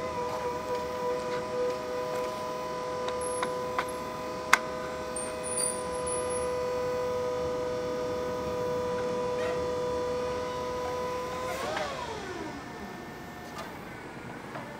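Hyster N40FR reach truck's electric hydraulic pump motor whining steadily as the mast lifts the forks, with a few sharp clicks a few seconds in. About twelve seconds in the motor cuts off and its whine falls away in pitch as it spins down.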